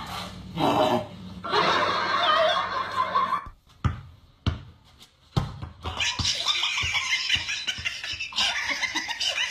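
People laughing, with a quieter stretch in the middle where a basketball bounces on concrete a few times, each bounce a sharp thud.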